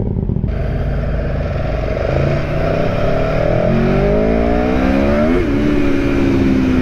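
Aprilia Tuono V4 motorcycle's V4 engine accelerating hard on a wet road, its pitch climbing through a gear, then a quick dip at a gear change about five seconds in, after which it runs on at a steady, slowly falling pitch.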